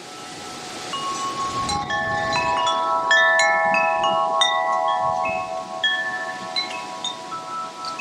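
Wind chimes ringing: many metal tones struck at irregular moments and left to ring on, over a soft wind hiss. The sound swells in over the first couple of seconds.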